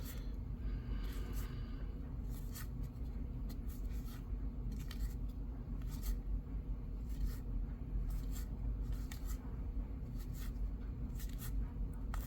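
Trading cards being flipped through one after another, each giving a short papery flick, about one or two a second, over a steady low background hum.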